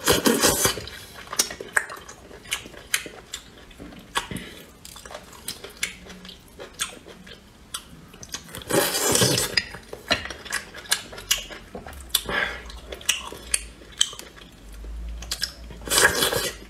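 Cooked half-shell oysters sucked off the shell three times, with loud slurps at the start, around nine seconds in and near the end. Between the slurps there is chewing and lip-smacking, and oyster shells click against a plate.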